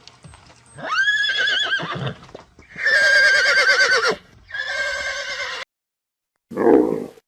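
A horse whinnying: two long, quavering whinnies and a shorter third one. After a short silent break, a loud, rough, deeper animal call begins near the end.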